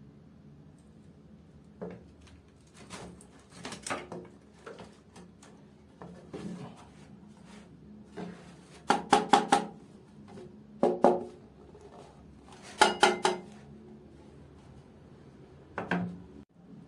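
Clacking and rattling of a power supply's cables and plastic connectors being handled, in short irregular clusters of clicks and knocks, loudest about nine and thirteen seconds in.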